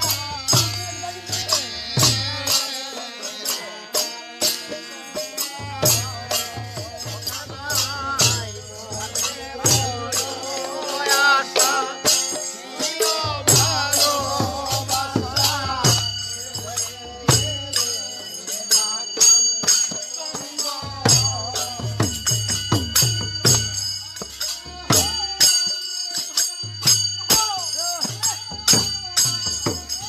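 Bengali village kirtan: voices chanting together over fast, continuous clashing of kartal hand cymbals. A drum beats in runs that drop out and come back every few seconds.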